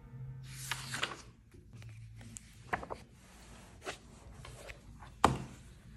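Paper pages and the cover of a spiral-bound notebook rustling and rubbing as it is handled and closed, with a few small taps and one sharp knock about five seconds in.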